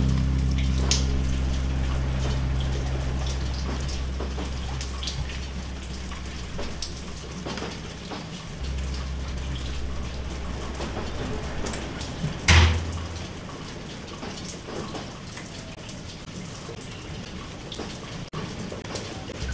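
Scattered water drops pattering like light rain, over a low hum that fades out. One louder thump about twelve and a half seconds in.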